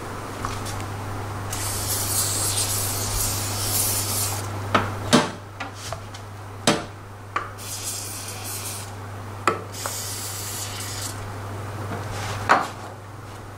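Aerosol spray can hissing in three long bursts onto the scooter's CVT drive parts, with a rag rubbing and a few sharp metal clinks between the bursts.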